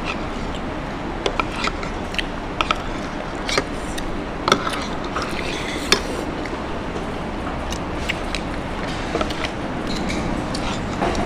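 Metal spoons tapping and scraping against plastic bowls while eating, a scattering of short sharp clicks over a steady background noise.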